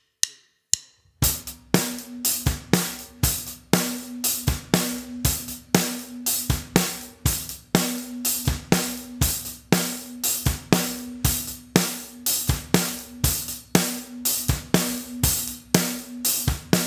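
Drum kit playing a basic eighth-note rock groove: eighth notes on the hi-hat, snare on 2 and 4, and bass drum on 1 and the 'and' of 3, at song tempo. A couple of sharp count-in clicks come first, and the beat starts about a second in.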